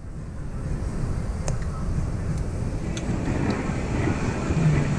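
Daihatsu Tanto kei car running, a steady low rumble with a few faint ticks.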